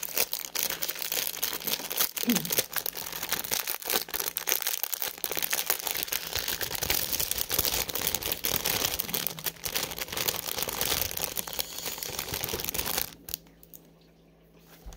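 Clear plastic packaging bag crinkling and rustling as it is handled and pulled open, a dense crackle of small clicks that stops abruptly about two seconds before the end.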